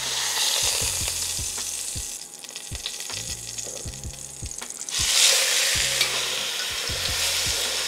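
Chuck roast sizzling as it sears in hot avocado oil in a Dutch oven. The sizzle eases while the roast is lifted on tongs, then swells sharply about five seconds in as it is laid back down with its unseared side in the oil.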